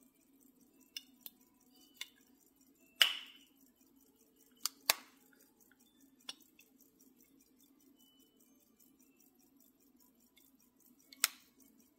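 Case lids of an 1888 Elgin gold-filled hunter-case pocket watch being handled and snapped shut and open: a series of sharp metallic clicks. The loudest comes about three seconds in with a short ring, then a close pair near five seconds and another strong click near the end.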